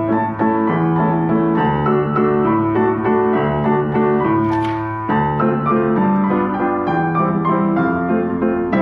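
Background piano music: a steady flow of single notes over held chords.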